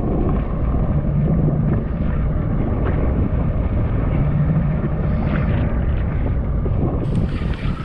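Wind buffeting the microphone over choppy sea and the low hum of a jet ski engine running at trolling speed.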